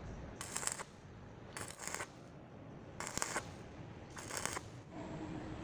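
Electric stick-welding arc crackling in four short bursts, about once every second and a quarter, as weld is built up on a broken bolt stub in a cylinder block so the bolt can be pulled out. A steady low hum starts near the end.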